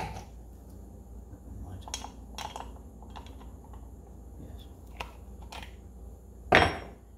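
Metal wrenches clinking and clicking as one is picked from a wall rack and fitted to the nut of a vintage vacuum windshield-washer pump, with one short, loud scrape near the end.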